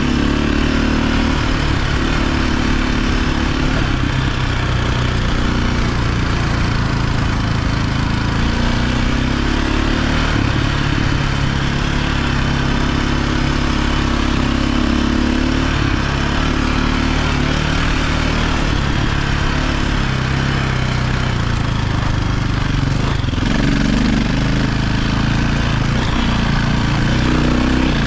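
KTM 520 dirt bike's single-cylinder four-stroke engine running on the move, its note rising and falling with the throttle, with a steady hiss under it. The engine note briefly drops about five seconds before the end, then picks up again.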